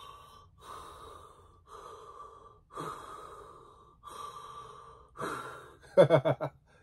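A man imitating Darth Vader's respirator breathing: about six slow, hoarse breaths in and out at an even pace. A short, louder burst of voice follows near the end.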